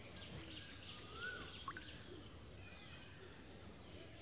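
Birds calling in the background over a steady low hiss: one rising-then-falling whistled call about a second in, followed by a short downward chirp and a few faint higher chirps.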